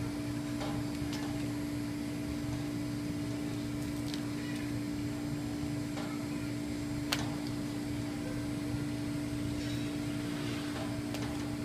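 Steady machine hum with a constant tone over a low rumble, broken by one sharp click about seven seconds in.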